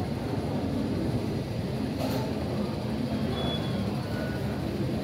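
Steady low rumble and hum of a train station concourse, with a brief hiss about two seconds in.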